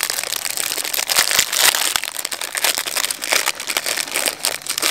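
A plastic popsicle wrapper crinkling and crackling as it is unwrapped, in a dense, irregular run of crackles.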